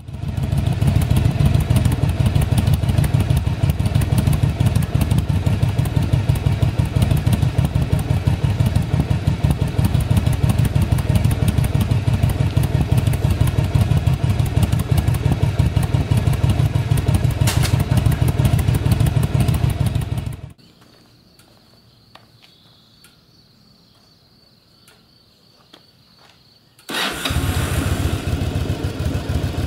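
Yamaha Drag Star XVS 1100 air-cooled V-twin idling with a steady, even beat for about twenty seconds, then cutting out to a quiet stretch with only a faint high whine. About 27 seconds in the engine starts abruptly and settles straight back into a steady idle.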